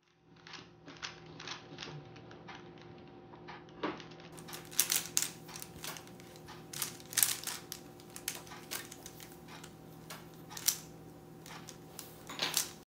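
A 3x3 Rubik's Cube turned rapidly by hand: an irregular run of plastic clicks and clacks as its layers rotate, with a few sharper, louder snaps.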